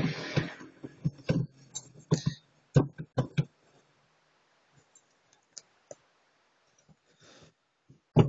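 Sharp clicks inside a car cabin as a hand works the controls around the steering column: about half a dozen in the first three and a half seconds, then only a few faint ticks.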